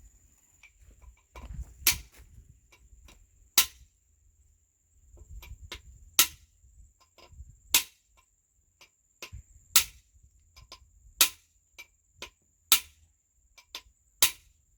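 Hammer strikes during repair work, eight loud blows spaced every one and a half to two seconds, with lighter taps and knocks between them.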